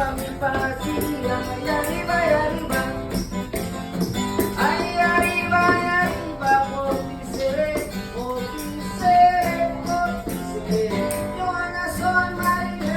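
Background music: a song with singing over guitar and a steady percussion beat.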